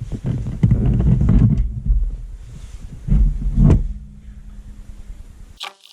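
Low rumbling knocks and handling noise in two spells as the parking-brake switch is worked back into place by hand, then a faint steady hum that cuts off abruptly near the end.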